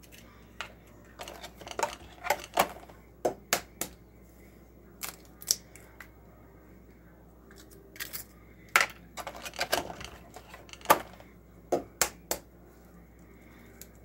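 Raw eggs being cracked open by hand and the shells pulled apart: a string of sharp taps and shell cracks that come in several bunches.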